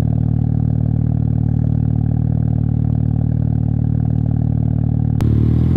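Mazda RX-7's twin-turbo 13B two-rotor rotary engine idling steadily after a start-up. There is a brief click a little over five seconds in, after which the idle continues with a slightly different tone.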